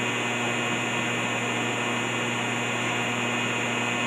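Electric arc welding at about 90 amps: a steady hiss of the arc with a low electrical hum underneath. The welder judges 90 amps too low for this piece.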